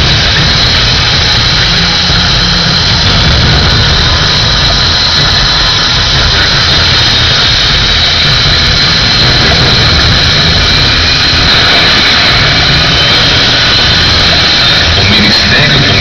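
Funk dance-party sound system played at very high volume, overloading the recording into a dense, distorted wash: a steady high whine over a heavy bass rumble.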